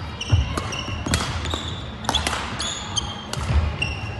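Badminton rally on a wooden sports-hall floor: sharp racket-on-shuttlecock hits several times, short high squeaks of court shoes on the floor, and thudding footsteps.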